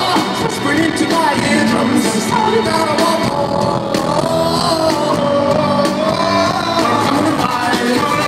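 Indie rock band playing live in a concert hall, with a sung lead vocal over the full band.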